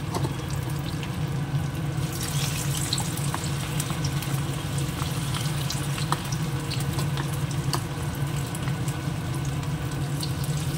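Marinated, cornflour-coated chicken pieces deep-frying in hot oil in a kadai: a steady sizzle with scattered small pops and crackles, over a steady low hum.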